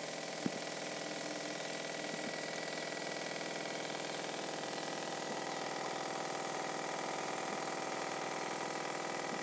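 A motor running steadily, a constant hum with a thin high whine through it; a light click about half a second in.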